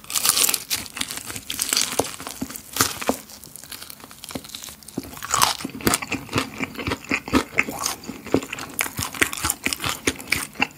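Close-up biting and chewing of fried chicken with a crisp cereal-flake coating: a loud crunch at the first bite, then repeated crackling crunches as it is chewed.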